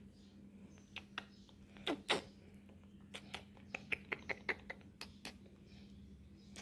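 Faint, irregular clicks and taps, several a second, from a hand stroking and scratching a cat close to the phone, over a low steady hum.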